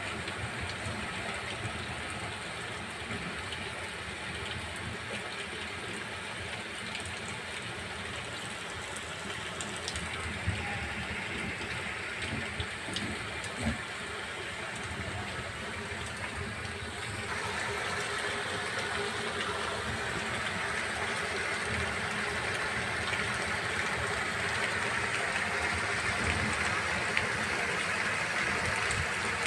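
Heavy rain pouring onto paved ground: a steady hiss of falling rain and splashing water, with a few small ticks, getting somewhat louder a little over halfway through.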